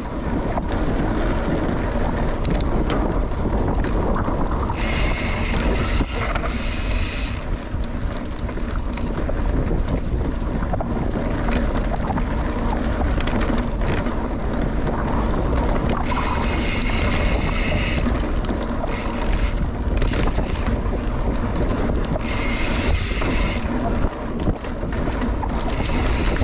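Mountain bike riding fast down a dirt trail: wind buffeting the microphone, tyres rolling over dirt and roots, and the bike rattling over bumps. A higher buzzing comes and goes three times.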